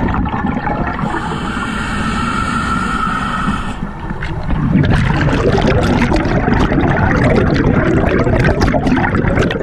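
Scuba diver breathing through a regulator underwater: a steady hissing inhalation from about a second in, then a long, loud bubbling exhalation.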